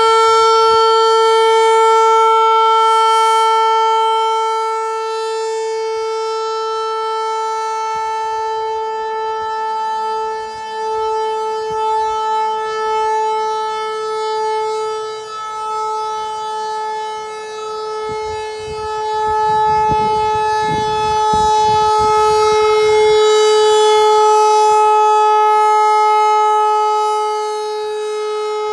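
ASC RM-130 rotating mechanical siren sounding its steady single-pitch tone during the three-minute monthly test. It swells and fades as it turns: loud at the start, softer through the middle, and loud again from about two-thirds through.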